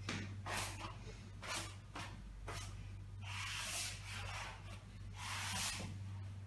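A person breathing slowly in and out, with two longer breaths in the second half and shorter rustles before them, over a steady low hum.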